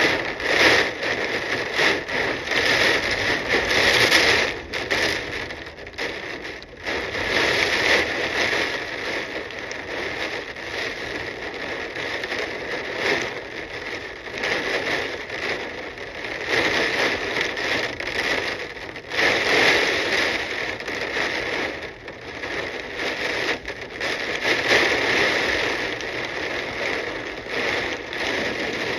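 Hurricane wind gusting through trees with heavy rain; the gusts swell and ease every few seconds.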